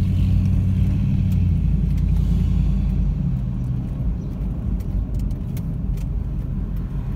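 Car engine and tyre noise heard from inside the cabin while driving, a steady low drone that eases a little about two to three seconds in.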